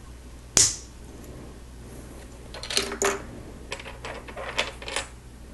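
Plastic Lego pieces clicking and clattering as a small model is put together by hand: one sharp snap about half a second in, then two runs of small clicks and rattles.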